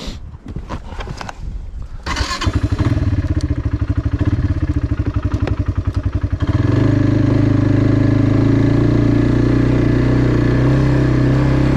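A few knocks, then the Kawasaki Brute Force 300 ATV's single-cylinder engine starts about two seconds in and runs with a lumpy, pulsing idle. About four seconds later it steps up into a steady, louder running note.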